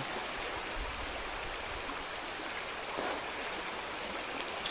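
Steady rushing of a flowing river, with one short soft sound about three seconds in.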